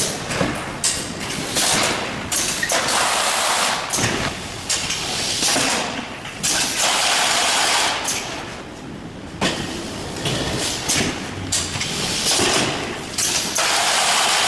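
Random flap-folding case taping machine running. It gives repeated loud bursts of rushing noise, each about a second long, with knocks and thuds between them as cartons are folded and taped.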